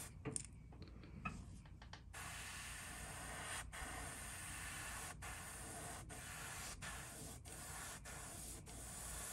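Airbrush spraying paint in a steady hiss of air, with a short break near the start before the hiss picks up again about two seconds in.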